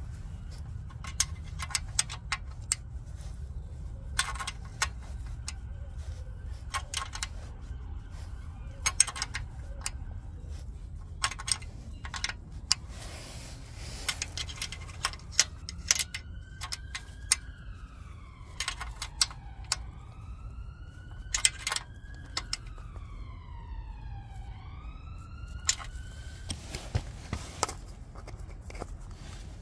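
Sharp, irregular metal clicks and clinks of a wrench on the oil pump's mounting bolts. From about halfway through, a siren in the distance wails up and down for about ten seconds.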